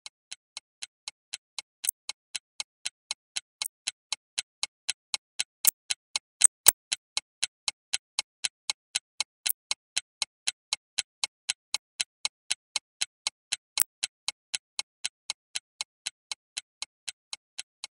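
Evenly paced clock-like ticking, about four ticks a second, swelling in and then fading out, with a few louder ticks about six seconds in. It is a steady ticking laid over the footage rather than the sound of the chiles being peeled.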